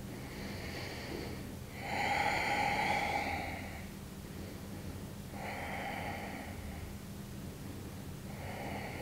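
A woman breathing slowly and audibly close to a clip-on microphone while holding a pose: long, soft breaths about every three seconds, the loudest about two seconds in.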